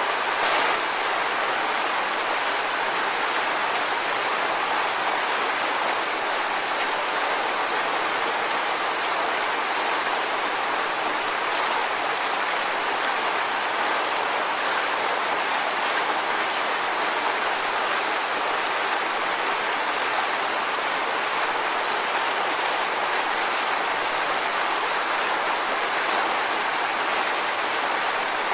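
Steady, even rushing of a waterfall, a constant hiss-like wash of falling water with little deep rumble.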